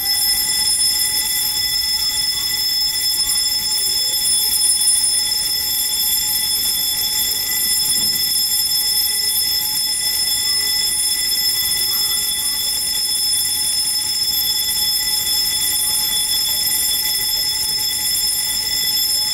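Electronic warning alarm at a shipyard, sounding one steady, unbroken tone made of several high pitches. It starts abruptly and holds level without pulsing.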